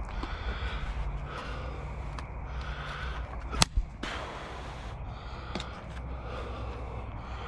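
Porch demolition by hand: two sharp knocks in quick succession about halfway through, then a brief hissing rustle, as boards and debris are worked loose. A steady low rumble runs underneath.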